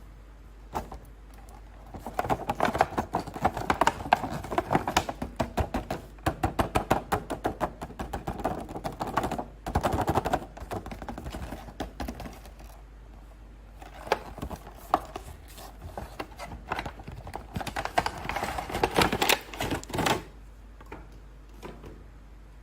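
Action figure toy packaging being handled and opened: dense runs of quick clicks, taps and crinkles, in two long spells with a short lull between.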